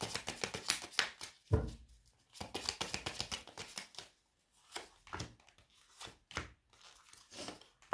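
Tarot cards being shuffled by hand: rapid runs of papery clicks and flicks, with a dull knock about one and a half seconds in and sparser flicks in the second half.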